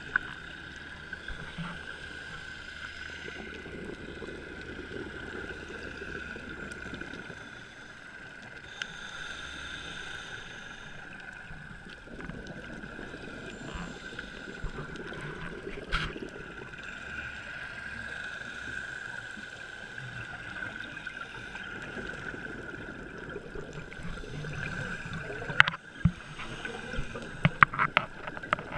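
Underwater ambience picked up through a dive camera's housing: a steady muffled hiss with a constant high-pitched tone. Near the end, scuba exhaust bubbles crackle in a few sharp bursts.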